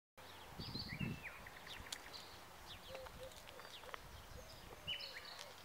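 Small birds chirping and calling in short, quick notes, faint over a light outdoor hiss, with a brief low rumble about a second in.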